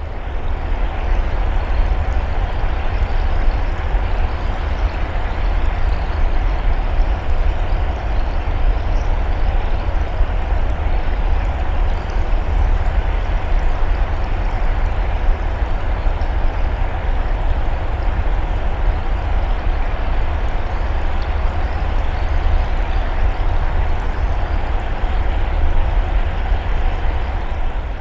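Steady rushing, watery noise over a deep rumble, unbroken throughout.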